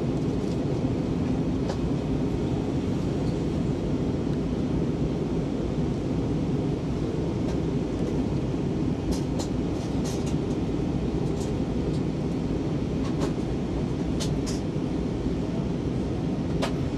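Steady cabin noise inside an Airbus A320-232 airliner in flight: a deep, even rumble of the engines and the airflow over the fuselage. A few faint ticks sound over it in the second half.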